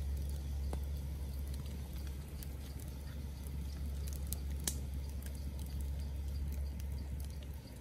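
Open wood fire crackling with scattered small pops and one sharper crack about halfway through, over a steady low rumble.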